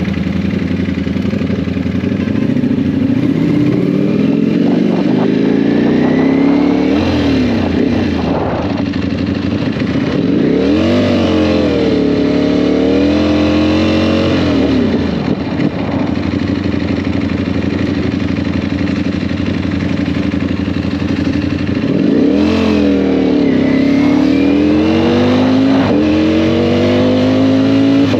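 Sport motorcycle engine under way, revs climbing and falling several times as the rider accelerates and backs off, with a steady rush of wind and road noise underneath.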